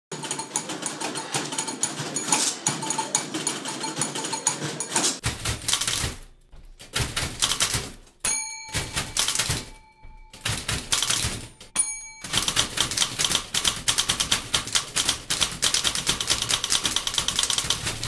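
Several manual typewriters played as a percussion ensemble: rapid, rhythmic key clacking with short pauses and two bell dings. The first five seconds carry a denser mix with steady tones over the clicking.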